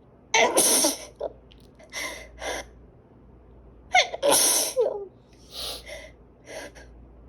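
Person sneezing hard twice, about half a second and four seconds in, with shorter, quieter sounds between. It is part of a run of repeated sneezing that they put down to allergies.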